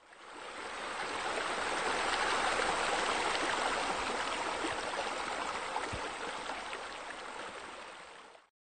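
Steady rush of running water from a pool's spillover water feature. It fades in over the first second and fades out near the end.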